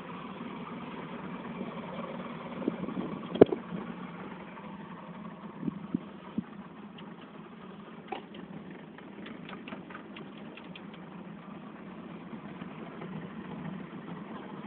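Small boat's motor running steadily at low speed, a low even hum, with a sharp knock about three and a half seconds in and a few lighter knocks and ticks later.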